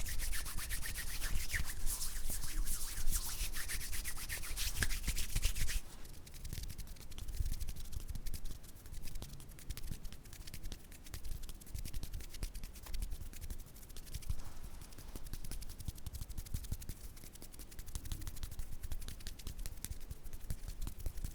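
Close-miked ASMR hand sounds: palms rubbing together briskly with a dry, scratchy rasp. About six seconds in it drops to softer, quieter hand movements with fine crackling ticks.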